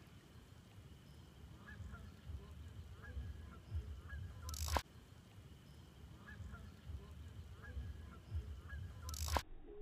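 Faint short rising bird calls, like distant honking, repeated every half second or so over a low rumble on the microphone. Two sharp clicks stand out, about halfway through and near the end.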